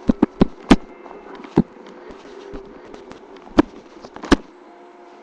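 About seven sharp cracks or pops at uneven intervals, the loudest a little under a second in, over a steady low hum.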